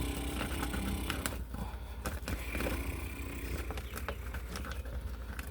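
Electrical wires being fed up through a wall cavity to a new outlet hole, with irregular scraping, rubbing and clicks over a steady low hum.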